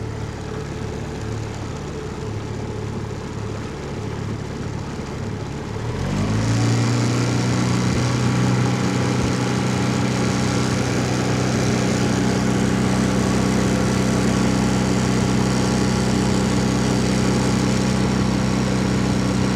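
15 HP four-stroke outboard motor running with an uneven, stuttering note, the high-RPM misfire it develops once warmed up. About six seconds in the engine note rises and it settles into a steady, louder, even run, not missing.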